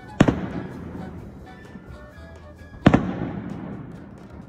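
Two aerial firework shells bursting, sharp bangs about two and a half seconds apart, each followed by a long fading rumble.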